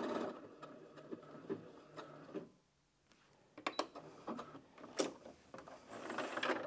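Brother SH40 computerised sewing machine finishing a one-step buttonhole, its stitching stopping a moment in. Then scattered clicks and small handling sounds as the work is taken off the machine, with one sharper click about five seconds in.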